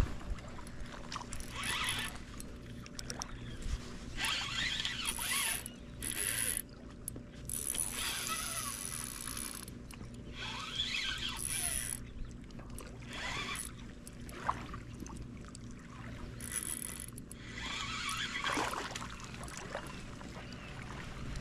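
Spinning reel cranked in bouts of a second or two with short pauses, its gears and rotor whirring and clicking as a hooked fish is reeled in on a bent rod.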